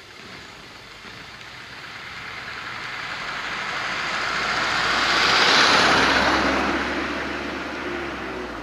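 A car drives past at road speed. The tyre and engine noise builds to a peak about halfway through, then fades as it goes away.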